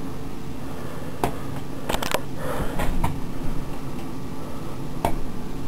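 Steady low hum of a room with a few sharp clicks and knocks scattered through it, about five in all, and a brief rustle in the middle.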